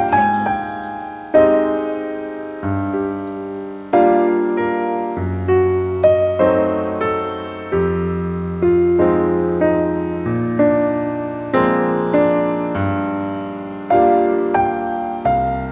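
Background piano music: soft chords and single notes struck about once a second, each left to fade.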